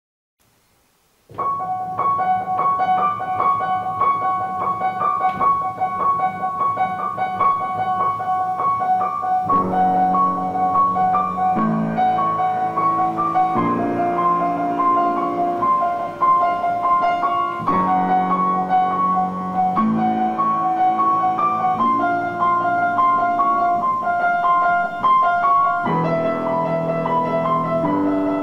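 Background piano music starts about a second in. A high figure of notes repeats steadily, and lower bass notes join it about nine seconds in.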